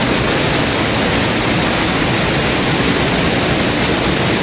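Waterfall pouring into its pool: a loud, steady rush of water.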